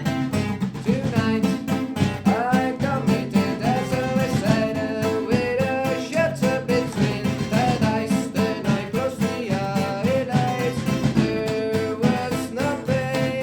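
Live acoustic band playing: strummed acoustic guitars over bass and percussion, with a melody line on top whose notes slide in pitch.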